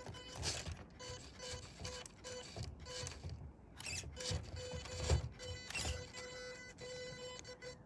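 Small electric motor and gearbox of a toy RC off-roader whining in short on-off bursts, with irregular knocks and scrapes as it works over obstacles.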